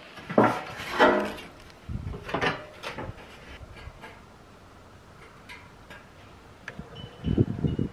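Several short scrapes and knocks in the first three seconds, then a quiet stretch, with another low rumbling knock near the end.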